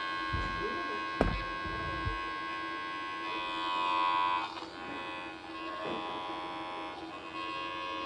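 Failing 1 TB Seagate portable USB hard drive giving off a steady, many-toned hum, with a sharp click about a second in. Around four seconds a higher whine swells and then drops away abruptly. It is the sound of a dying drive.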